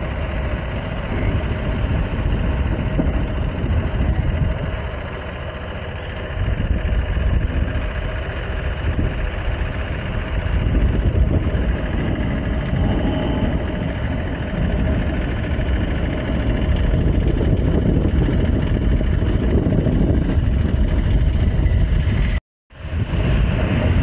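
Motorbike engine running steadily under way, mixed with rushing road and wind noise on a wet road. The sound cuts out completely for an instant near the end.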